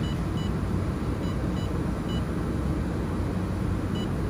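About six short, high electronic beeps from the laser welding machine's touchscreen control panel as its buttons are tapped, spaced unevenly. They sit over a steady low machine hum.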